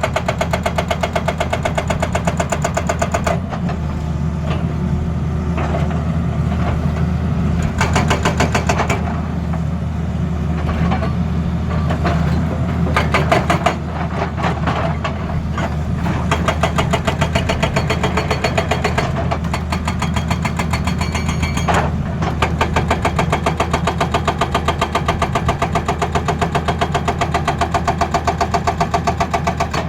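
Hydraulic breaker on an excavator hammering rapidly and evenly over the diesel engine running under load. The hammering stops and restarts a few times.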